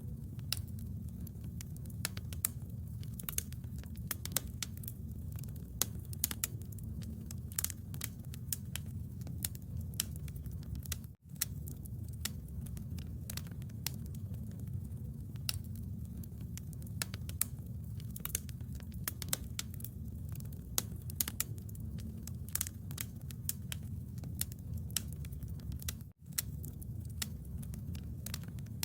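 Bonfire crackling, with frequent irregular sharp pops and snaps over a steady low rumble. The sound cuts out for a split second twice.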